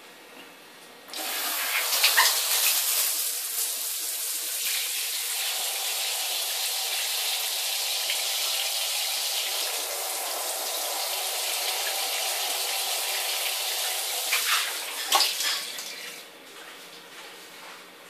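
Handheld shower head spraying water onto a tiled floor. The water comes on suddenly about a second in and stops near the end, with a few sharp knocks at the start and end of the flow.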